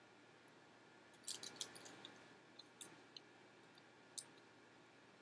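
Faint chewing of a chocolate sunflower-seed butter cup: a quick run of small clicks about a second in, then a few scattered clicks.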